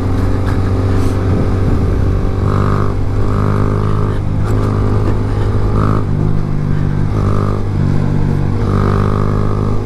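Motorcycle engines running steadily as the bikes ride along. A higher engine note comes and goes several times over the steady low hum.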